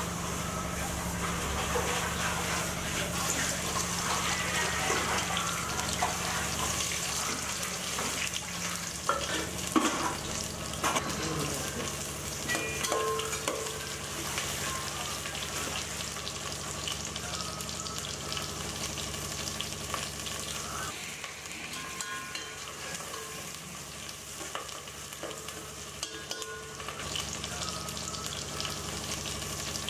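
Sliced onions and spices sizzling steadily as they fry in hot ghee in a metal pot. A spatula stirs and scrapes against the pot, with clicks and scrapes clustered in the first half.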